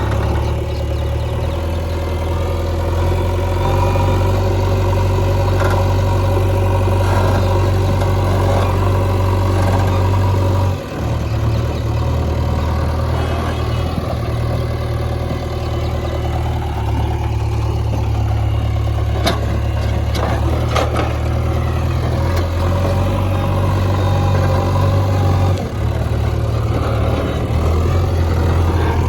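JCB backhoe loader's diesel engine running steadily while it backfills a pipeline trench. The engine note shifts briefly twice as the load changes, and a few sharp clanks come about two-thirds of the way through.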